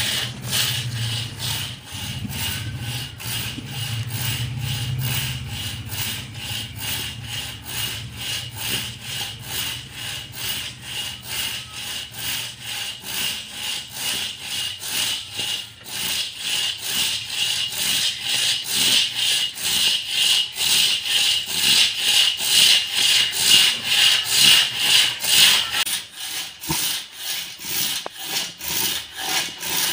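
Hand saw cutting through a dense shisham (tali) hardwood log in steady back-and-forth rasping strokes, about two a second, growing louder in the second half.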